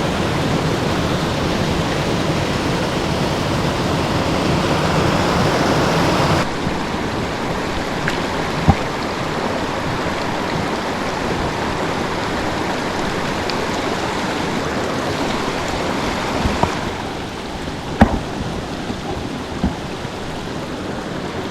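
Creek water running steadily. The sound of the water changes abruptly about six seconds in. A few sharp clicks or knocks break through, the loudest near the end.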